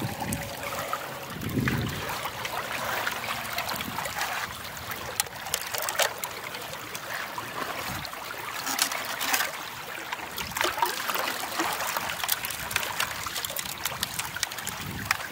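River water running and trickling through a small creek sluice box set in the current, with scattered small splashes.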